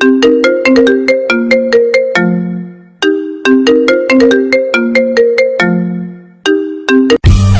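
A phone ringtone: a short melody of quick, bright notes that each die away, ending on a lower held note, with the phrase played twice. About seven seconds in it cuts abruptly to a different tune with bass and guitar.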